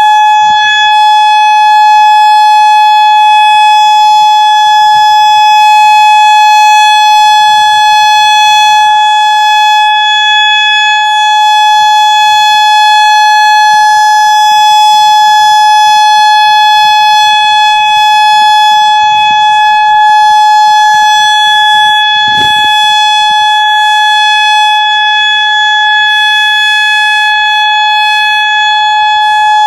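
Federal Signal Modulator 6024 II electronic outdoor warning siren sounding its steady alert tone, one loud unwavering pitch with no rise or fall.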